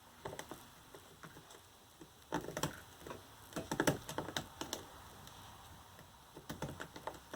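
Small hand tools clicking and tapping against the plastic housing of a scooter battery pack during disassembly, in three short clusters of sharp clicks with quiet between.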